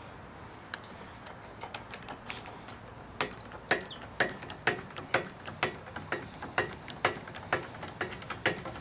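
Hand-pumped hydraulic jack on a truck hitch crane being worked by its handle to raise a load of about 150 to 200 pounds, clicking with each pump stroke. The clicks are few and faint at first, then come steadily about twice a second from about three seconds in.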